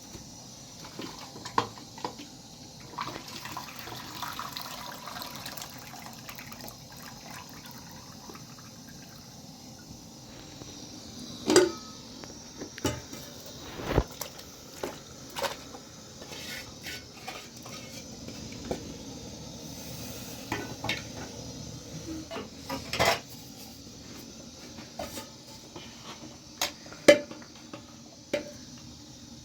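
Irregular clinks and knocks of objects being handled, a few louder than the rest, over a steady low background noise.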